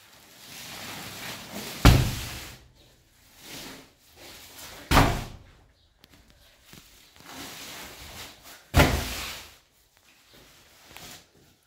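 Heavy flour sacks dropped one after another onto a tiled floor: three loud thuds, about two, five and nine seconds in. Each comes after a stretch of rustling and scuffing as the sack is hauled over.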